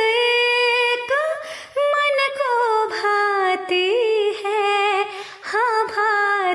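A woman's voice singing the melody of a Hindi devotional bhajan without words, unaccompanied. She holds long notes that bend and waver, with brief breaths between phrases.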